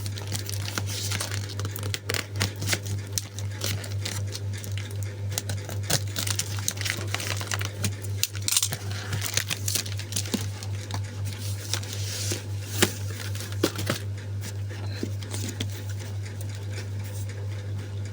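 Packaging being handled and unwrapped: irregular crinkling, rustling and small clicks, thinning out near the end, over a steady low hum.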